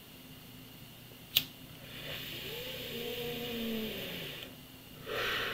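A lighter clicks once about a second and a half in. Then comes a steady hiss of breath being drawn through a lit small pipe for about two and a half seconds, with a faint wavering whistle under it. A second breathy hiss follows near the end.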